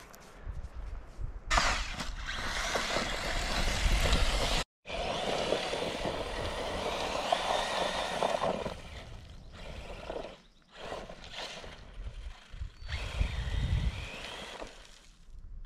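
Brushless RC car driven hard over loose volcanic ash and gravel: a loud hiss of spraying grit under the motor's whine through the first half, then shorter, quieter bursts of acceleration with a rising whine near the end.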